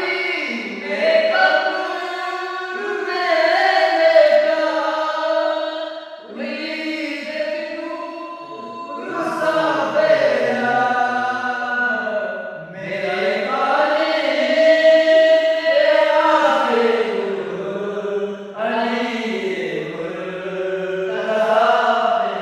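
Several men singing a manqabat, a devotional poem in praise of Ali, together with no instruments, in long held melodic phrases with short breaks between lines.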